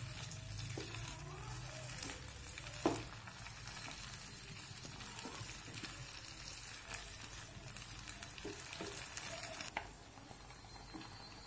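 Water spinach sizzling and simmering in a small frying pan of broth while a wooden spatula stirs it, with one sharp knock of the spatula about three seconds in. The sizzle drops quieter near the end.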